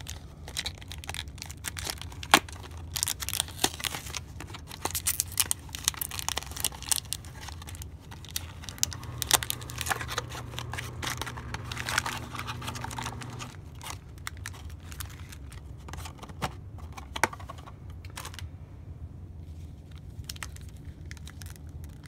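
Plastic blister and cardboard packaging of a trading-card box being torn open and handled: a dense run of crinkling and sharp crackles that thins out near the end.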